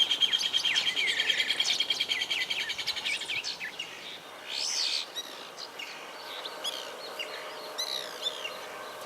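Birds calling: a fast, high rattle of repeated notes that fades out over the first three seconds or so, then scattered short down-slurred chirps.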